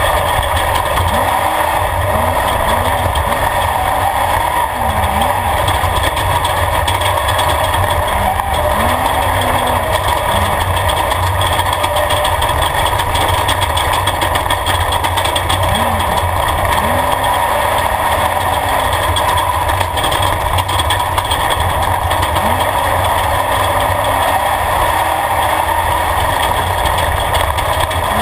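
Off-road race vehicle's engine running hard, heard from inside the caged cockpit over a steady din of road and wind noise. The engine note rises and falls repeatedly as the driver works the throttle.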